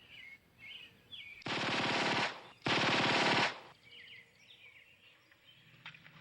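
Two bursts of automatic gunfire, each under a second long, with a short gap between them. Faint birds chirp before and after.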